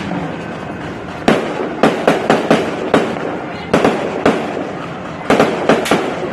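Fireworks going off: sharp bangs in quick clusters, about six in the second and third seconds, a few more near the fourth second and another burst of several near the end, over a steady hissing, crackling background.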